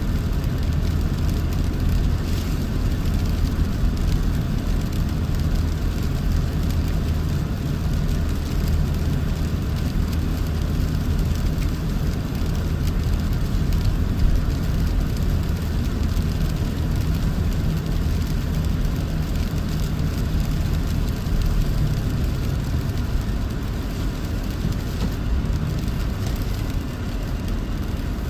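Toyota 4Runner driving through snow: a steady low engine drone with tyre and road noise, holding an even pace.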